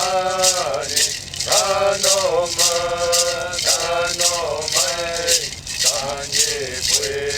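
A hand rattle shaken in a steady beat, accompanying a voice chanting in long held notes that slide down at their ends.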